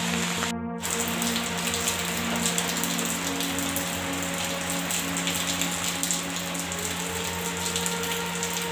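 Steady rain falling on leaves and trees, a continuous hiss full of small drop ticks, with a brief gap in the sound just under a second in.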